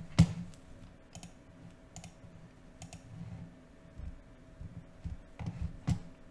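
A few sharp clicks of a computer mouse, the loudest just after the start, then roughly a second apart, with another near the end.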